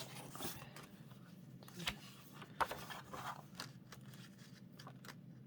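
Paper rustling and light handling clicks as the pages of a printed zine are turned and handled, with two sharper clicks a little after halfway, over a faint steady low hum.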